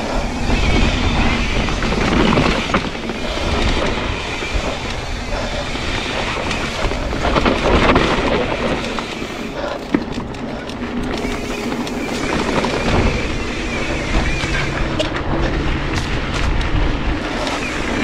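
Yeti SB130 mountain bike descending a dry dirt singletrack: tyres rolling over dirt and the bike rattling over bumps, with wind rumbling on the microphone.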